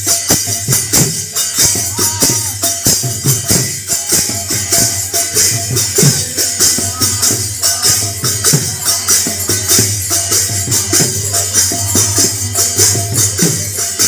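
Devotional kirtan playing: brass hand cymbals clashing in a fast, even rhythm over the strokes of a mridanga (khol) barrel drum, without pause.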